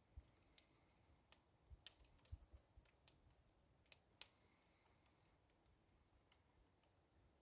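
Faint, irregular crackling and snapping of a brush-pile fire burning branches, with most of the sharp pops in the first four seconds and the loudest about four seconds in.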